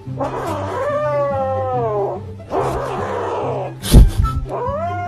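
Grey kitten yowling in two long drawn-out calls, the first sliding down in pitch, the second rising and then held. A short hiss-like rush of noise comes between them, and a sharp knock about four seconds in is the loudest sound. Background music with a steady low tone runs underneath.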